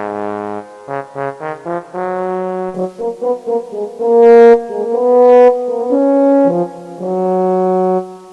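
Brass-band style music: a melody of short detached notes that gives way to longer held notes, and it cuts off abruptly at the end.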